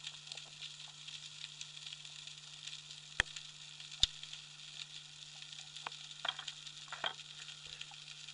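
Underwater ambience on a dive: constant crackling and hiss with a steady low hum. Two sharp clicks come about a second apart past the middle, followed by a few softer scratchy crackles.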